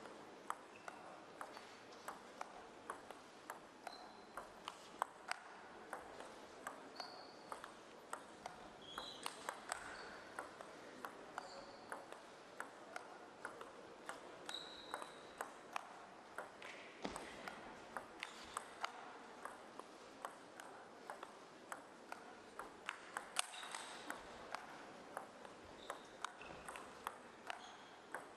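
A long table tennis rally: the plastic ball clicks off bats and table about once or twice a second in a steady back-and-forth.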